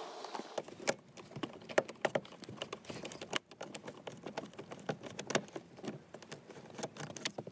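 Ratcheting hand driver with an 8mm socket clicking rapidly and irregularly as it backs out a bolt holding the lower dash panel, with some metal-on-metal rattle from the socket.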